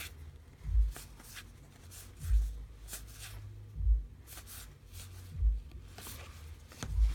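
Trading cards being flipped through one at a time, with short papery slides and a dull low thump about every second and a half.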